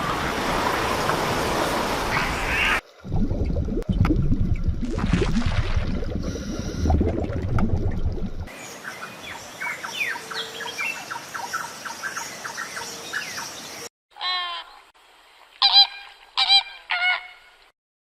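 A run of separate animal recordings: a stretch of steady noise, then many short chirps, then several loud honks from geese in the last few seconds.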